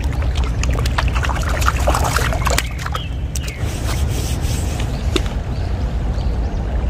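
Splashing in the shallows as a small rainbow trout is landed by hand, sharp and busy for the first three seconds or so, over the steady run of a small creek.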